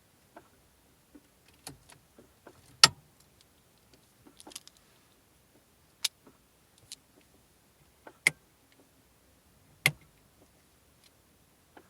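Irregular sharp clicks and ticks from the dashboard area of a 2002 Audi A4 B6 1.6 petrol: the unexplained noise whose cause the owner is asking about. A few louder snaps stand out, the loudest about three seconds in and two more near eight and ten seconds.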